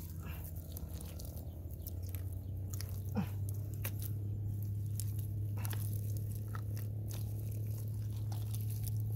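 Hands digging into dried, cracked mud, breaking and pulling out clods of earth, with scattered crunching and crumbling clicks. A steady low hum runs underneath, and a brief falling squeak is heard about three seconds in.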